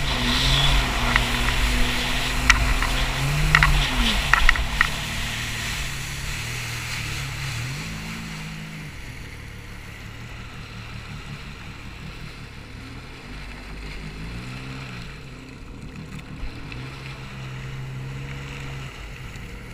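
Jet ski engine running, its pitch rising and falling several times as the throttle is worked. There are a few sharp knocks in the first five seconds, and the engine grows fainter from about six seconds in.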